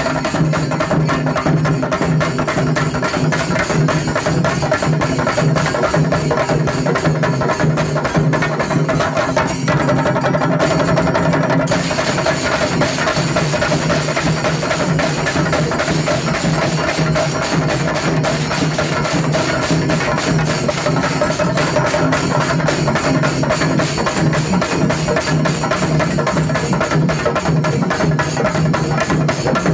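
A chenda melam ensemble: many vadakkan chenda drums beaten with curved sticks. The drummers play a fast, dense, unbroken rhythm.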